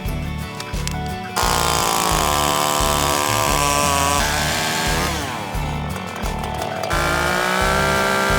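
Small two-stroke engine of a handheld power tool revving hard at full throttle, easing off about four seconds in, revving up again, then dropping back near the end. Background music with a steady beat underneath.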